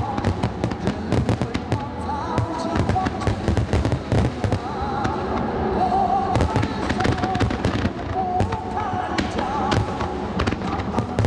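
Aerial firework shells bursting in a rapid, irregular run of sharp bangs and crackles.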